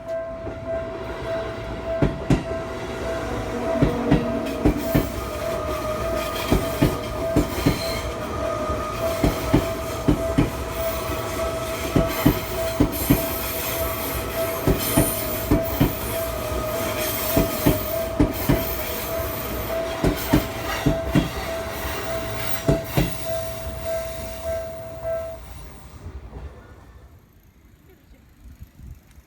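Seibu electric train passing over a level crossing, its wheels clacking over the rail joints in quick, irregular strikes, while the crossing's warning bell rings steadily. The bell stops about 25 seconds in and the sound falls away.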